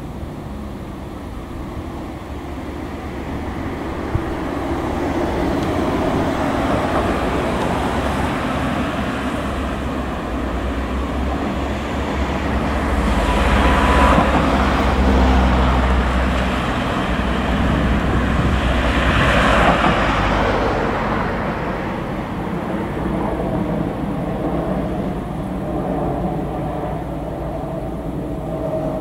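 Road traffic: cars driving past close by over a steady traffic rumble, the two loudest passes about halfway through and again about two-thirds in.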